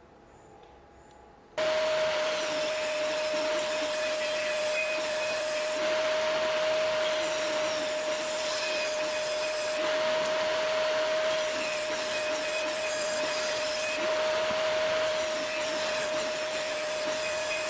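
An electric woodworking power tool starts up about a second and a half in and runs with a steady high motor whine. Four bouts of rougher, hissier noise a few seconds long sit on top of the whine as the tool works wood.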